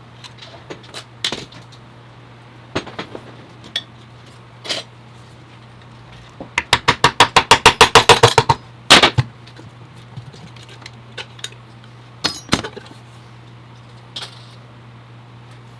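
Metal tools and transmission parts clinking and knocking during a teardown of a Jatco 4-speed automatic transmission. A fast run of about twenty sharp clicks comes in the middle, followed by a loud knock.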